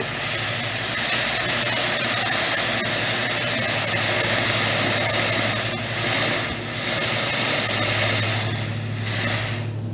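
Hot forged steel quenching in a water tank, with steam hissing steadily and easing off briefly a couple of times, a sound the smith likens to a steam locomotive.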